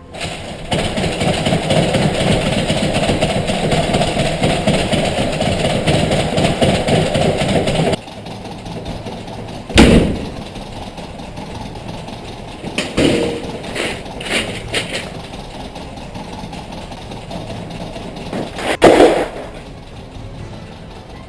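A steady rumbling noise that cuts off suddenly about eight seconds in, then a series of sudden loud bangs and clattering knocks. One comes about ten seconds in, a cluster follows a few seconds later, and the loudest is near the end.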